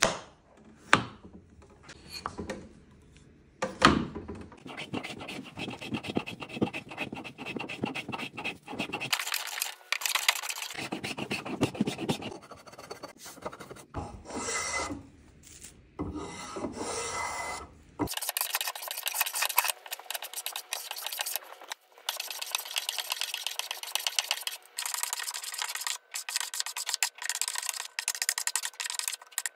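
Spokeshave shaving the edges of a walnut post in a series of rasping strokes.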